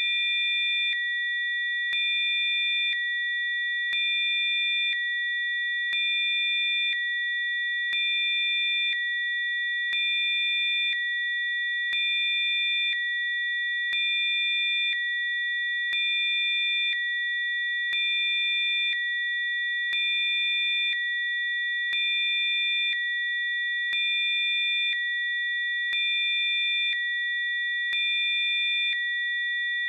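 Electronically generated pure sine tones used as Rife healing frequencies. Several steady high tones sound together, while a fainter, lower tone pair switches in and out about once a second with a faint click at each change.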